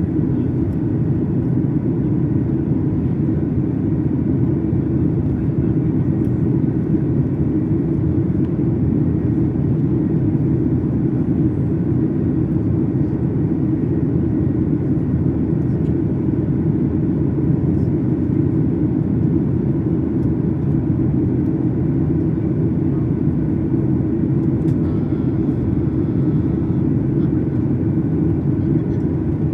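Steady cabin drone of a Boeing 737 MAX 8 in flight, heard from inside the cabin: an even low rumble of its engines and the airflow, with no change in pitch or level.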